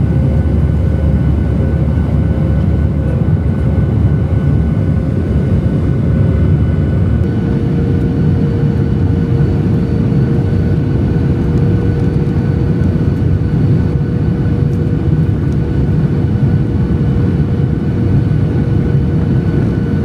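Jet airliner cabin noise heard from a window seat: engines and airflow making a steady, loud, deep rumble with a thin hum on top that steps slightly lower in pitch about seven seconds in.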